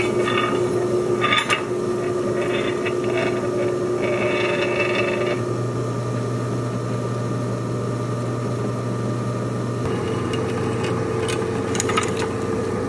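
Drill press running with a small twist bit cutting into metal flat bar: a steady motor hum, with a higher cutting noise that comes and goes in the first five seconds as the bit bites. About ten seconds in the machine's steady tone shifts up in pitch.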